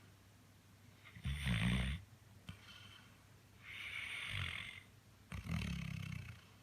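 Chocolate Labrador Retriever snoring in its sleep: two low snores, the first about a second in and the loudest, the second near the end, with a long airy breath out between them.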